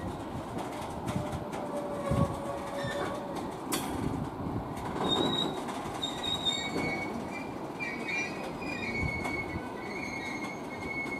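A rake of loaded ballast wagons rolling slowly through the yard, its wheels squealing in drawn-out high tones that change pitch several times, with scattered clanks and knocks from the wagons over the track.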